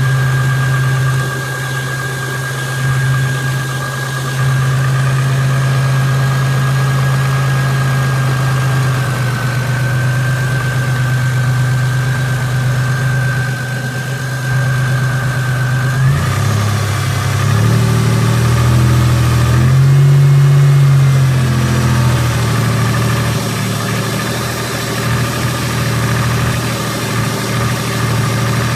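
Car engine idling with the valve-lifter noise running through it. About halfway through, the engine note changes and rises briefly, then settles back to a steady idle.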